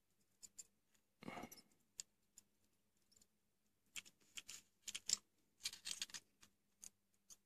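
Faint, irregular small clicks and taps of hand work at a soldering bench: an LED strip being handled and pressed against a helping-hands alligator clip for soldering, with a short soft rush of noise about a second in.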